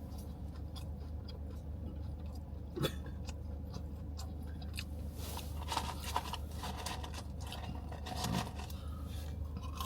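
Someone chewing crunchy fries, with small crunches and clicks over a steady low hum.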